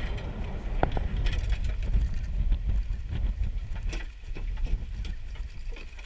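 Wind buffeting the microphone as a steady low rumble, over choppy water around a small boat. A few light knocks come through, about a second in and again around four seconds.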